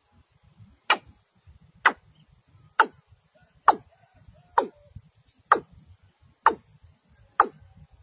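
Watercock calls: a short, sharp note that drops steeply in pitch, repeated steadily about once a second, eight times.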